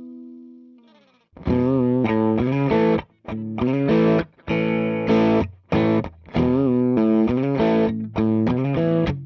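Electric guitar through a Marshall JTM45-style EL34 valve amp clone, played with overdrive. A held chord fades out, and after a short pause a riff of short, choppy chords with quick stops follows.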